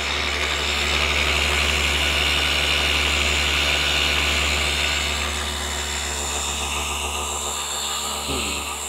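Flex FX3331 24V cordless gear-driven orbital polisher running steadily, polishing car paint with a foam pad: a continuous motor drone with a high whine, easing slightly in level about halfway through.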